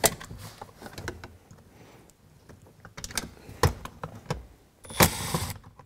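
Clicks and knocks of an 8 mm socket on a cordless Milwaukee Fuel driver fitting onto the plastic-mounted screws of a blower motor power module. About five seconds in, the driver runs in a short half-second burst, backing a screw out.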